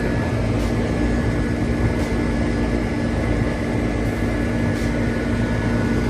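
Steady machine drone: a low rumble with an even hum, and faint ticks about every second and a half.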